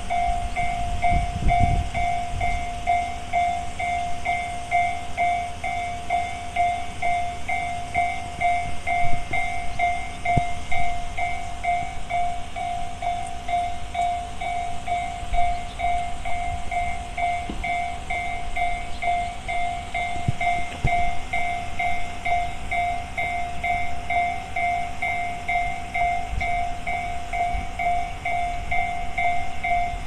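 Tobu-type electronic level-crossing bell (the 'Tobu sound C' alarm) ringing with a quick, even, repeating electronic ding, warning that a train is approaching while the barriers are down.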